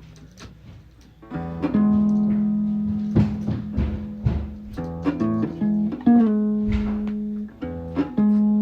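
Guitar playing: quiet plucked notes for the first second or so, then louder notes and chords struck every second or two and left to ring out and fade, with small picking clicks between them.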